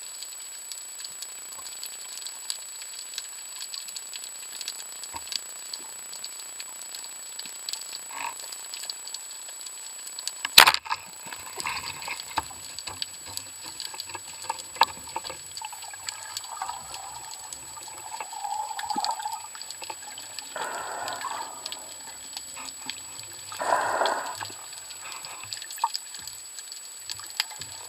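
Underwater reef ambience, a steady crackle of fine clicks, broken about ten seconds in by one sharp, loud snap as a band-powered wooden speargun fires. Later come two longer rushing, bubbling sounds.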